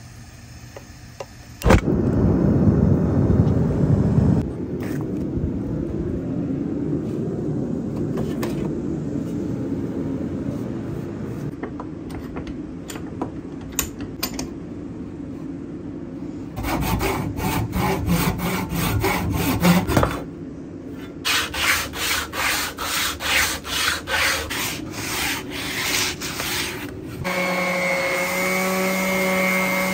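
Hand work on a wooden axe handle clamped in a bench vise: a steady low scraping, then a run of even rubbing strokes about two a second, as when rasping or sawing wood. About three seconds from the end, an electric random orbital sander starts and runs steadily on the wooden handle.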